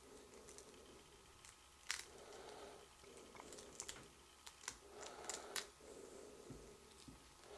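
Chinchilla nibbling a small hard treat held in the fingers: faint, scattered crisp crunching clicks, several close together in the second half.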